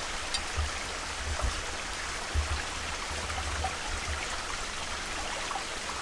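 Steady rushing of a nearby stream, with a few soft low bumps in the first half.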